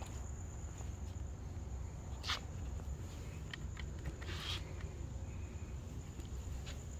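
A cricket's steady high trill over a low background rumble, with two brief rustles about two seconds in and again midway.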